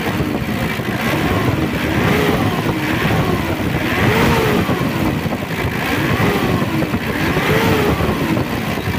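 Mitsubishi L200's 4D56 2.5-litre turbo-diesel engine revved in repeated throttle blips, its pitch rising and falling about six times. Revved, it gives a crackling rattle that the mechanic puts down to the compression or the injector nozzles.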